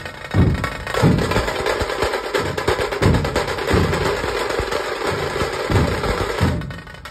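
Dhol-tasha ensemble: tashas play a fast, dense roll over deep beats of large barrel dhols. The roll cuts off about six and a half seconds in.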